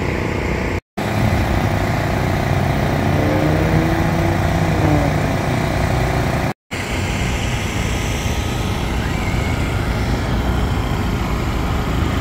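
Many small gasoline generators running together: a loud, steady engine drone, broken twice by a brief silence.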